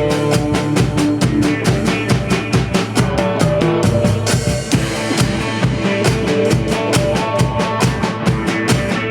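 Rock band playing an instrumental passage: a drum kit keeps a fast, even beat with kick and snare under bass and held notes, without vocals.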